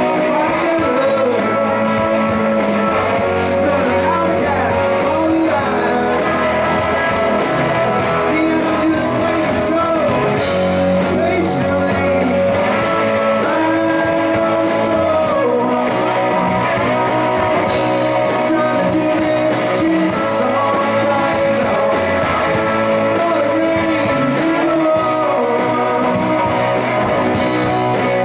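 Live band playing a slow rock song: a man sings lead over electric and acoustic guitars.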